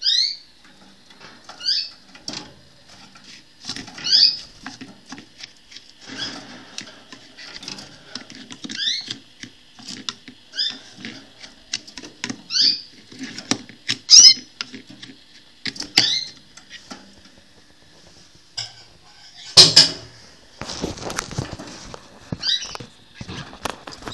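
Canaries chirping: short, high, falling calls repeated every second or two, over clicks and rustles of a feeding dish being handled. A loud clatter about 20 seconds in is followed by a couple of seconds of rustling.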